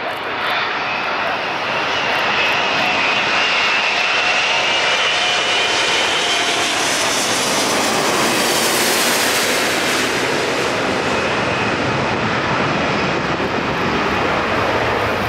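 Airbus A380-861's four Engine Alliance GP7200 turbofans at approach power on final approach, a loud jet noise that builds in the first couple of seconds. A high whining tone sits over it for several seconds, and the sound is brightest as the airliner passes low overhead about halfway in. It then settles into a broader, deeper rumble.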